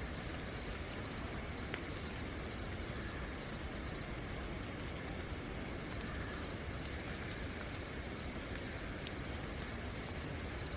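Steady night rain falling, with crickets chirping in a rapid, even high-pitched pulse over it and a few sharp drips now and then.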